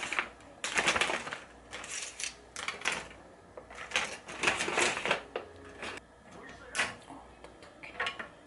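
Plastic packaging bag of dried Chinese glass noodles crinkling and rustling in irregular bursts as the stiff noodles are handled, with a sharp click about seven seconds in and a few more near the end.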